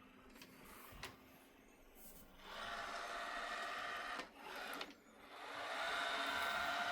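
Samsung Steam AI Ultra robot vacuum's motors whirring as it heads back to its station after finishing cleaning, a steady mechanical hum that starts about two and a half seconds in, dips briefly, then comes back louder. A couple of light clicks come before it.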